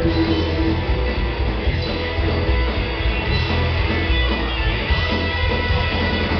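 Live rockabilly trio playing: electric guitar leading over upright bass and drums, loud and steady.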